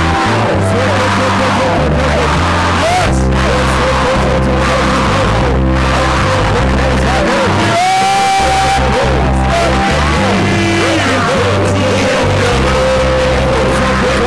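Loud church worship music: deep sustained bass chords that change every second or two, with voices singing and calling out over them and one long held note about halfway through.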